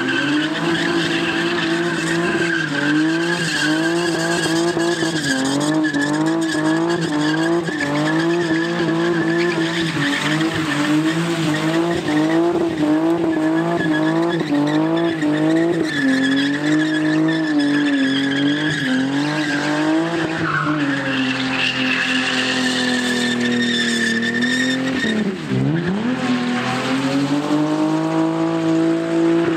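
A car doing burnout donuts: its engine held at high revs, wavering up and down, while the rear tyres squeal without a break as they spin on the tarmac. About 25 seconds in the revs drop sharply for a moment and climb back up.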